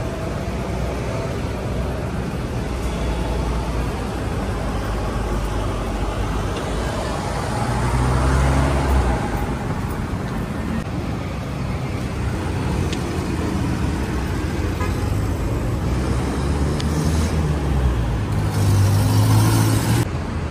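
City street traffic: cars and motorcycles running past, with louder vehicles going by about eight seconds in and again near the end.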